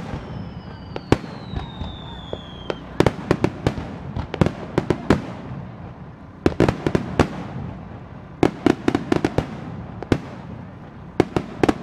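Aerial fireworks shells bursting in rapid volleys of sharp bangs, about five clusters, over a steady rumble. A high whistle falls in pitch through the first few seconds.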